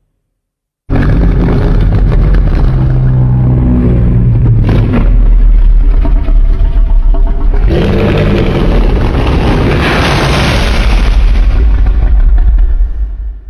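Monsterverse-style Godzilla roar sound effect. A loud, deep roar starts abruptly about a second in, with a sharp crack near the middle. About eight seconds in it turns harsher and higher, then dies away at the end.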